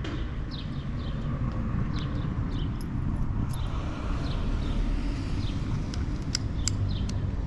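Outdoor ambience: a steady low rumble with small birds chirping in short repeated notes. A few sharp clicks come in the second half.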